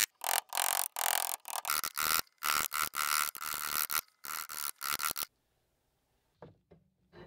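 A steel file rasping back and forth along a groove in a wooden handle block clamped in a vise, cutting the channel for a sword's tang. The strokes come about two a second and stop about five seconds in, followed by a few faint knocks.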